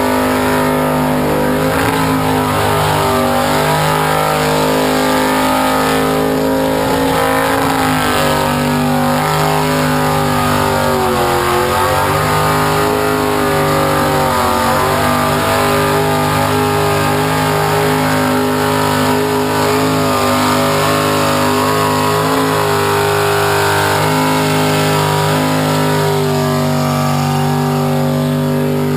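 A burnout car's engine held at high, steady revs while its rear tyres spin and smoke, with the revs dipping briefly now and then and climbing straight back.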